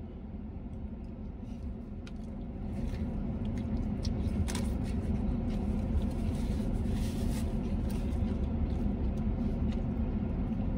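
Steady low rumble inside a truck cab, getting a little louder about three seconds in, with faint chewing and mouth sounds over it.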